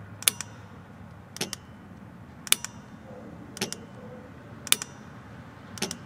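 Remote-controlled kill-switch relay for the fuel pump circuit clicking as it is switched on and off by its wireless fob: six sharp clicks, about one a second.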